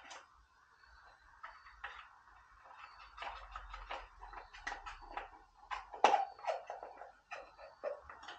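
Irregular clicks, knocks and rustling of hands handling chainsaw parts during cleaning, with one sharper clack about six seconds in.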